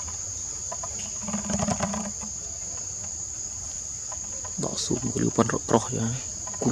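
Steady high-pitched drone of forest insects, with short voice-like sounds about a second and a half in and again from about four and a half seconds in.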